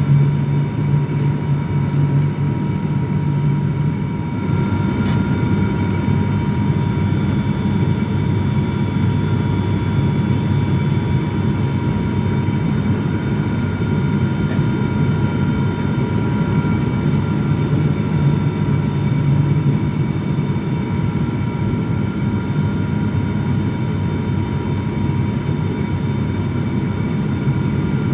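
Airliner engines heard from inside the passenger cabin: a loud, steady drone with a constant high whine over it, typical of an aircraft on approach to landing.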